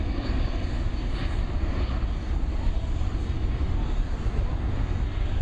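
Turbofan engines of a C-17 Globemaster III jet transport in flight, a steady loud low rumble.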